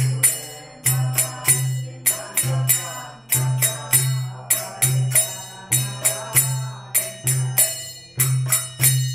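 Kirtan accompaniment between sung lines: small hand cymbals (kartals) clashing in a steady rhythm, about two to three strikes a second, over a drum's repeating low strokes, with a faint melody underneath.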